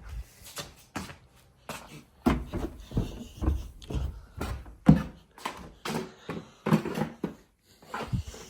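Irregular knocks and thumps of handling, about a dozen spread over several seconds: a smoke detector being worked off its ceiling mounting bracket.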